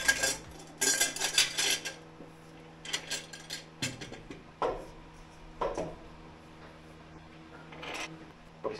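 Stainless steel dry-stack exhaust pipe sections clinking and knocking against each other and their flanges as they are handled into place. Rapid metallic rattles come in the first two seconds and again around three seconds in, then single knocks every second or so.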